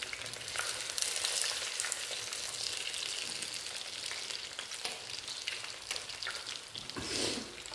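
Breaded cutlets frying in oil in a small aluminium frying pan: a steady sizzle with many small crackling pops. A brief louder noise comes near the end.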